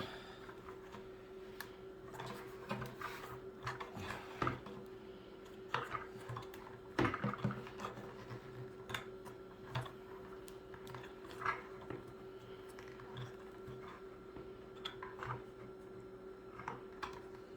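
Plastic chicken watering cup being screwed by hand into a 5-gallon plastic bucket, its threads biting into the plastic: irregular clicks, creaks and scrapes, over a faint steady hum.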